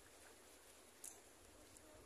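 Near silence: faint outdoor background hiss, with one small sharp click about a second in.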